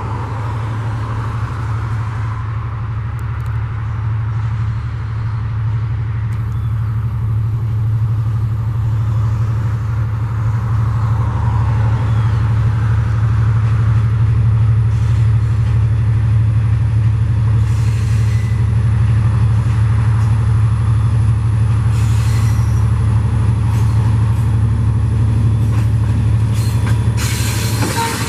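Diesel freight locomotive engine working hard at high throttle as it climbs a grade, a steady low drone that grows louder as it approaches. Near the end the noise of the wheels on the rails joins in as it draws level.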